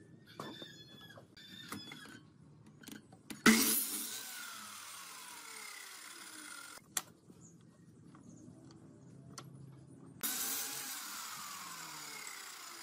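Sliding compound miter saw cutting thin pine strips twice, each cut starting suddenly and the blade then winding down with a falling whine. Light knocks of wood being handled come before the first cut.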